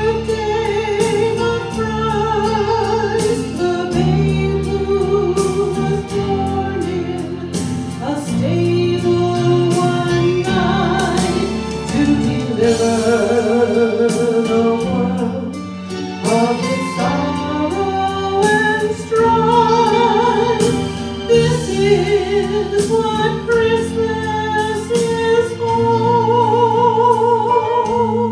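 A woman singing a slow song with vibrato into a microphone, over a sustained keyboard accompaniment.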